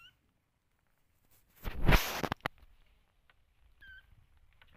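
A kitten gives a short high mew at the start and another about four seconds in. Between them, about two seconds in, comes a loud rustling scrape lasting under a second.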